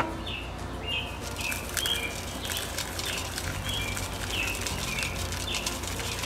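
Dry sand scooped from a metal pan and poured through a funnel into a lawn striping kit's roller tube, with a sharp clink at the start and scattered gritty clicks and patter. A songbird chirps over and over, a short note every half second or so.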